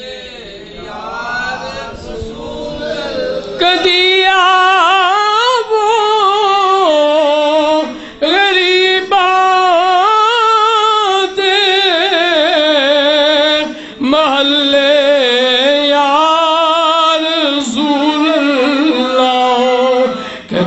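A man singing a devotional verse in Punjabi alone, unaccompanied, in long drawn-out phrases with wavering, ornamented notes. It starts softly and grows louder about three seconds in, then breaks briefly for breath about every six seconds.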